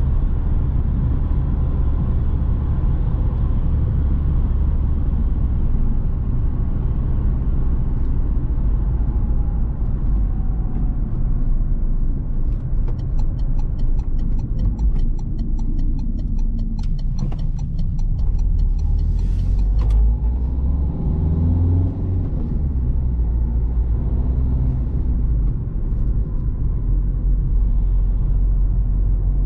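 Steady low rumble of a 2009 Citroën C3 Picasso's 1.6 HDi four-cylinder turbodiesel and its road noise, heard from inside the car while it drives. For several seconds midway there is a quick, even ticking.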